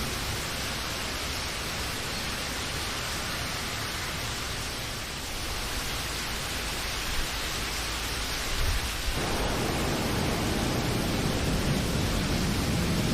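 Steady rain hiss; about nine seconds in a low rumble sets in underneath and continues.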